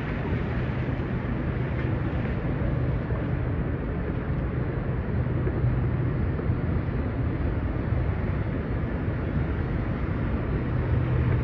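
Steady city street ambience: a continuous low rumble of traffic under a dense wash of street noise.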